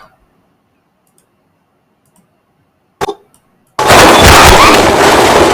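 Sound effect played back in an editing preview: near silence, a short sharp crack about three seconds in, then a loud rushing, explosive noise burst lasting nearly two seconds.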